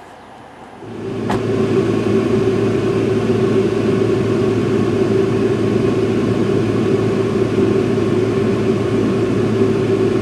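Loud, steady machine hum with a low and a mid-pitched tone that fades in about a second in, with one sharp click just after it starts.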